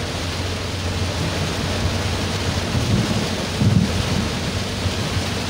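Heavy rain drumming on a car's roof and windscreen, heard inside the cabin as a steady hiss. A low rumble swells about three and a half seconds in.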